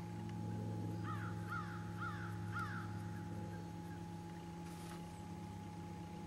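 A crow cawing four or five times in quick succession, starting about a second in, over the steady low hum of the boat's motor.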